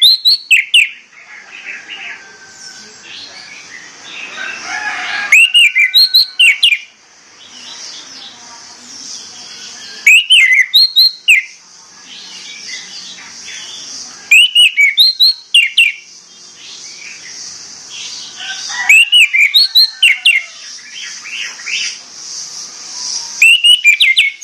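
Orange-headed thrush giving loud whistled calls: six short bursts of rapid, sharply rising-and-falling notes, about every four to five seconds. A steady high hiss and fainter chirps fill the gaps between bursts.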